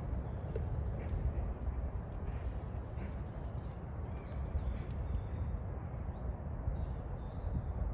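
Wind buffeting the microphone as a steady low rumble, with a few faint bird chirps.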